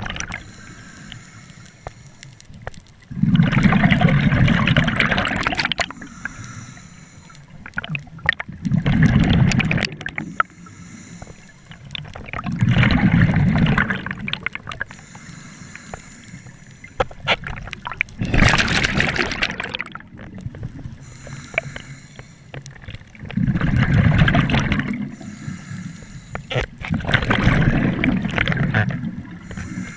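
A scuba diver's regulator breathing underwater: six bubbling exhalations roughly every four to five seconds, with a faint hiss between them.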